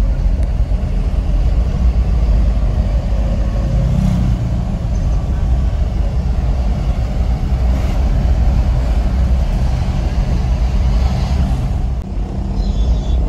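Minibus diesel engine running steadily with road noise, heard from inside the cabin, dipping briefly near the end.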